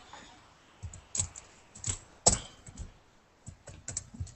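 Computer keyboard keystrokes clicking irregularly, about a dozen taps with one sharper click a little past the middle.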